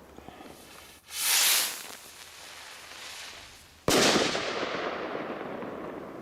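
A firework rocket launching with a short hissing whoosh, then bursting a few seconds later in one sharp bang that dies away slowly in echo.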